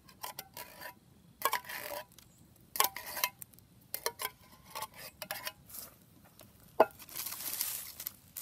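Metal spoon scraping and clinking inside a tin can of cherry pie filling, in short irregular strokes as the filling is scooped out. Near the end, a longer rustling scrape.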